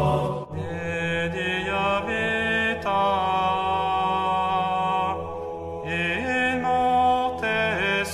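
A single voice singing Latin plainchant in long, held notes that move slowly from pitch to pitch, with a steady low hum underneath.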